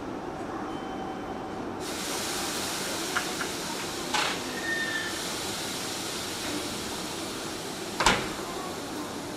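A Hanshin 7861-series electric train stands at the platform, and a steady hiss of air from it starts suddenly about two seconds in. A few light clicks and a short knock follow, then a sharp knock near the end, the loudest sound.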